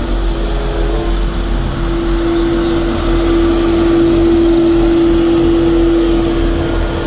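Street sweeper truck running: a loud, steady rushing noise with a constant hum through it.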